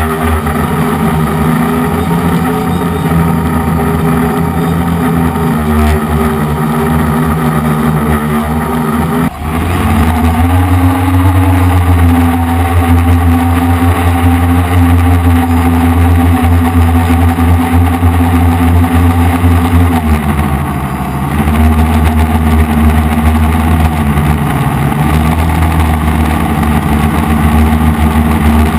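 DJI F450 quadcopter's motors and propellers humming steadily as it flies, the pitch shifting with throttle. There is a brief break a little over nine seconds in, after which the hum runs louder and steadier, and the pitch sags for about a second around twenty seconds in.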